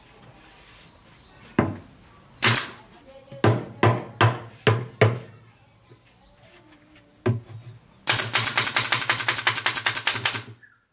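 Pneumatic nail gun driving nails into the MDF top panel of a subwoofer box. It fires about eight single, sharp shots spaced unevenly, then a fast run of shots at roughly eight a second for a couple of seconds near the end.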